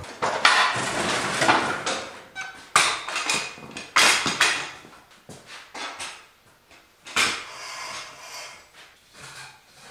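Metal folding roller stands clanking and rattling as they are handled, unfolded and set down on a concrete floor: several sharp metal knocks with lighter rattles between them.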